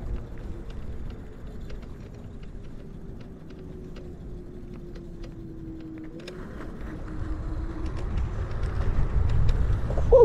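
Electric scooter riding: a faint whine from the Kaabo Mantis's dual 1000 W hub motors slowly drops in pitch as the scooter slows, then rises again about six seconds in as it picks up speed. Under it runs a steady rumble of road and wind noise that grows louder near the end.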